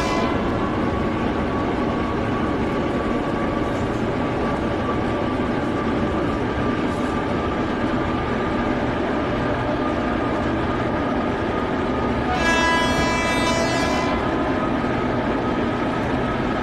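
Indian Railways WAP-7 electric locomotive running, heard from inside the cab as a steady rumble with a faint whine. About twelve seconds in, the locomotive's horn sounds once for about a second and a half.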